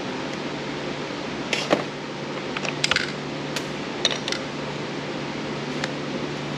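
Scattered light clicks and clinks of small screws and plastic parts being handled while a Roomba robot vacuum is taken apart with a screwdriver, over a steady low hum.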